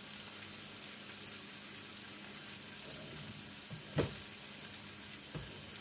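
Tofu frying in a frying pan, a steady soft sizzle, with one sharp knock of a utensil against the pan about four seconds in as it is turned.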